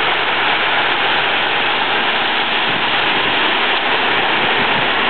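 Steady rushing noise of wet concrete coming down a cement truck's chute during a pour.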